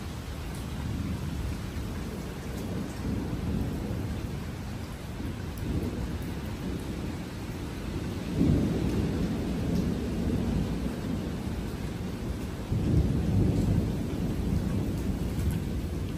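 Thunder rumbling over a steady hiss of rain. The rumble swells into two louder rolls, one about halfway through and another about three-quarters of the way in.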